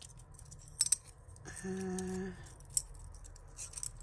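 Small metal clicks and clinks of costume jewellery, clip-on earrings with metal charms, being handled and pulled apart by fingers. A brief steady hum sounds about halfway through.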